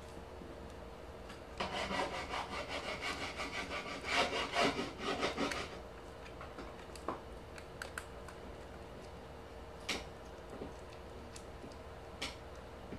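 A screwdriver being turned on a screw in a Dyson vacuum head's plastic housing: a rasping run of quick clicks, about five a second, for about four seconds, then a few scattered taps and clicks.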